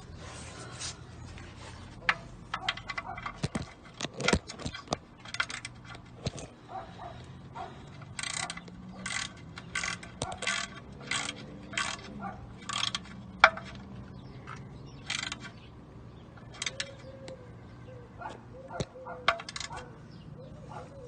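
Metal tools clinking and knocking on car parts in irregular sharp clicks, with a run of about two clinks a second in the middle.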